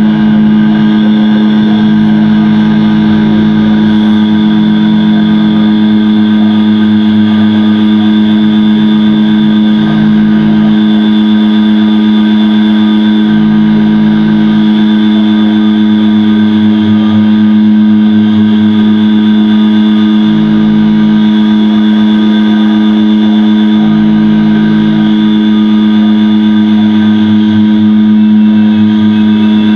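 Loud electronic noise music played live: a dense, steady drone built of a strong hum and layered tones, with a deep pulse and a higher tone switching in and out every two to three seconds.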